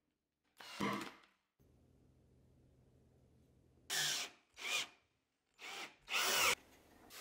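Cordless drill drivers driving screws into wood in short trigger bursts: one about a second in, then four quick bursts in the second half, the motor speeding up and slowing with each. The later bursts are a DeWalt driver sinking a screw through a wooden candle-cup foot into the box.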